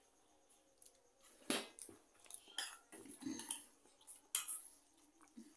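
Spoon clicking and scraping against plastic bowls as noodles are eaten: a scattered string of short clicks that starts about a second and a half in.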